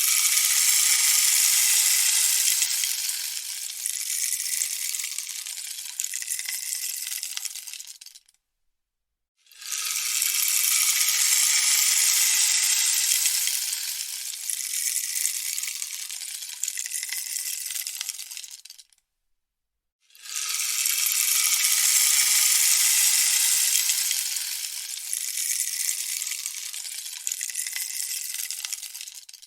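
Rainstick turned over three times, its fill trickling down inside in a hissing cascade of tiny clicks that is fullest at the start of each pass and thins out over about nine seconds. About a second of silence falls between passes.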